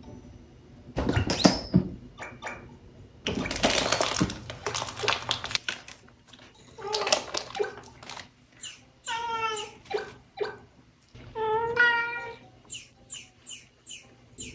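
Kitten meowing three times in drawn-out calls, after two loud bouts of scuffling and rustling. Near the end comes a quick run of short high chirps.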